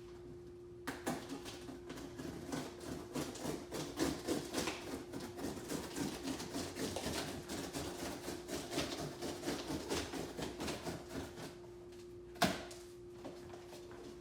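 A large cardboard TV box and its packing being opened and handled: about ten seconds of dense rustling, scraping and crackling, then one sharp knock near the end. A steady low hum runs underneath.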